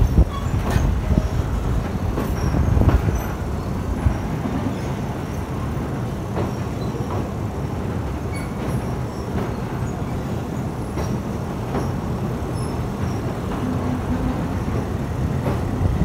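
Passenger train running along the track at low speed, a steady low rumble of wheels and carriage with scattered light clicks and knocks, a little louder in the first few seconds.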